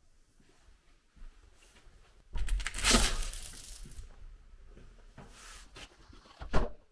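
Apartment front door being unlatched and swung open: a clatter of handle and latch about two seconds in that fades as the door moves, then a single sharp knock near the end.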